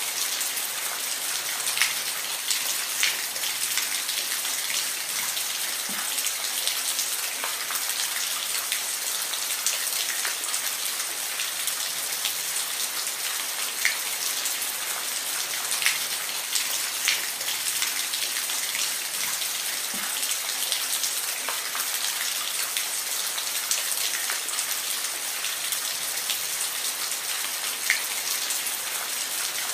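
Steady rain falling: an even hiss with individual louder drops striking a surface every second or two.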